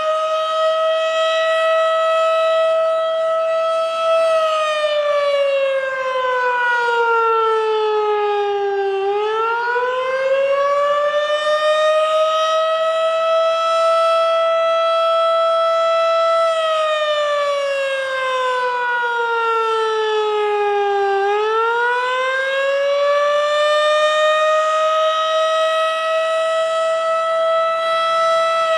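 Tornado warning siren sounding a wail. One loud tone holds high for about four seconds, slides down in pitch, then swoops back up and holds again; the cycle repeats about every twelve seconds, falling twice.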